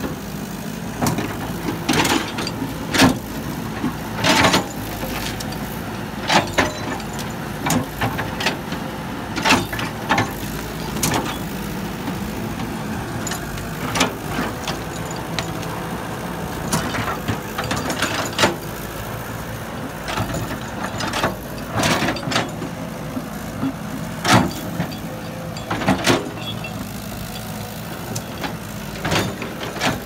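Crawler excavator's diesel engine running steadily, with frequent sharp clanks and knocks as the machine works through brush and timber.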